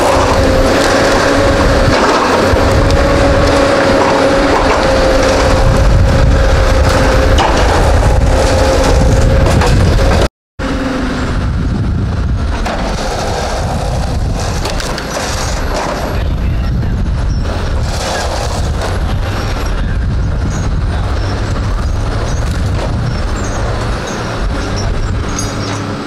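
Caterpillar tracked delimber working: its diesel engine and hydraulics run with a steady whine over a heavy rumble. About ten seconds in the sound cuts out for a moment and returns as a rougher, noisier machine rumble with scattered knocks.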